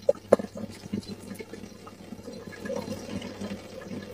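A thin stream of tap water trickling from a kitchen faucet into a sink, with a couple of sharp clicks in the first half second.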